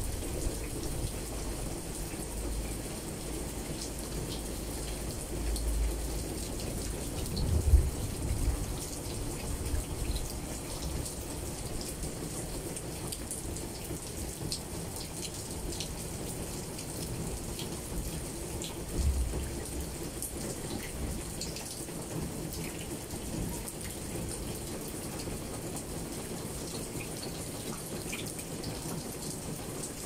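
Steady rain falling on tree leaves, with scattered sharp drop ticks. Short low rumbles come through, the loudest about eight seconds in and another just after nineteen seconds.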